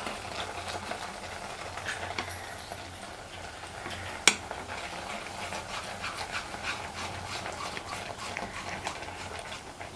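Silicone spatula stirring and scraping a thick milk-powder and powdered-sugar mixture around a nonstick pan, in short irregular strokes, with a sharp click about four seconds in.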